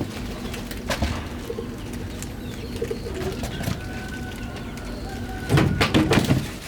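A pigeon cooing in a few short low notes, with a burst of loud clattering knocks near the end.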